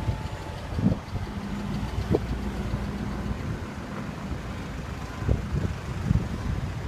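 Mercedes-Benz C63 AMG's V8 engine idling with a steady low rumble and a few sharp knocks; the owner says it has an engine knock.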